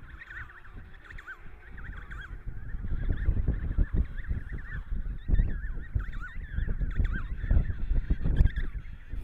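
Emperor penguin colony calling: a chorus of many short, high, warbling calls overlapping throughout. A low rumble of wind on the microphone grows louder from about three seconds in.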